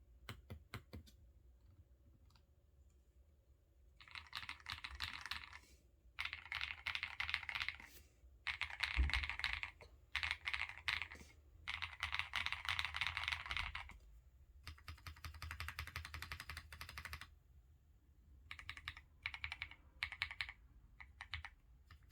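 Custom MW65 mechanical keyboard with Tecsee Carrot switches, XDA keycaps, a PC plate and foam and tape mods, being typed on fast in bursts of a second or three with short pauses between them. A few single keystrokes come first, and there is one deeper thud about nine seconds in.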